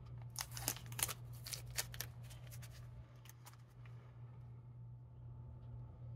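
Blue tape being peeled off the outer edge of an oil pump gear set: a quick run of ripping sounds over the first two seconds, then a few faint clicks, over a steady low hum.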